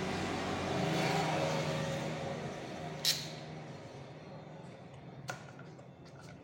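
A motor vehicle's engine passing by, swelling about a second in and then fading away, with two sharp clicks about three and five seconds in.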